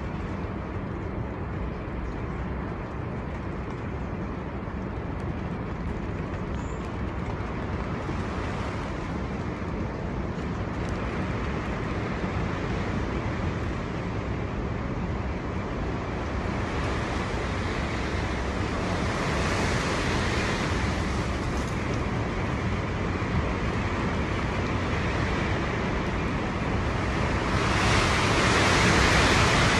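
Storm wind blowing in strong gusts, a continuous rushing with low rumble of wind buffeting the microphone; it swells about two-thirds of the way through and is loudest in a gust near the end.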